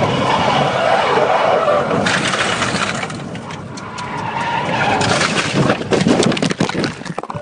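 A car skidding after hard braking from high speed, heard from inside the cabin: tyres scrubbing and squealing for about five seconds, then a rapid run of bangs and crunches as it crashes, cutting off suddenly near the end.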